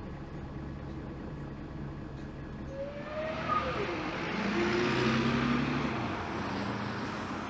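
Mercedes-Benz O530 Citaro Ü bus with a ZF automatic gearbox: a steady diesel hum inside the passenger cabin, then, about three seconds in, the bus heard from the roadside pulling away, its engine noise rising with gliding pitch and easing off near the end as it drives off.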